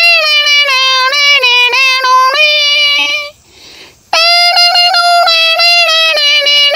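A man's vocal imitation of a harmonium together with a dholak beat: a sustained, reedy melody line broken by quick regular catches. It stops briefly about three seconds in, then resumes.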